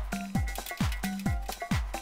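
Background electronic dance music with a steady kick-drum beat, about two beats a second.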